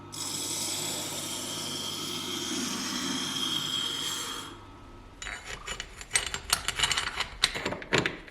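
Steady scraping for about four and a half seconds, then a run of quick rubbing strokes and clicks.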